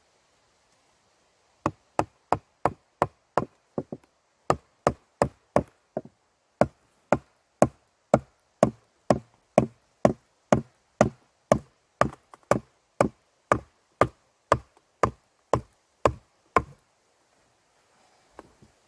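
A hatchet hammering a wooden wedge into a split in a thick log: some thirty sharp knocks at about two a second. The log is being wedged apart because it is too thick for the chainsaw to cut through. The blows stop about two seconds before the end, leaving a few faint knocks.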